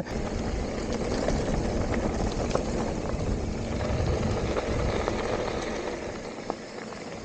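Mountain bike rolling along a dirt trail: steady rumbling tire noise from knobby Maxxis Assegai tires, with a few faint clicks and knocks, easing off slightly near the end.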